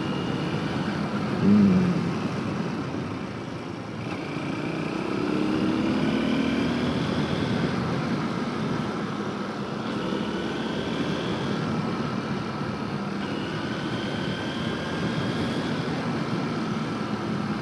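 Honda XR125L's single-cylinder four-stroke engine running while the motorcycle is ridden, its pitch rising and falling repeatedly as it speeds up and eases off.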